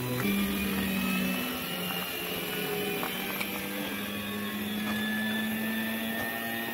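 CNC gantry machine's drive motors whining as they carry a spring-loaded ballpoint pen across a plywood sheet, marking out parts. The pitch drops sharply just after the start, then creeps slowly up.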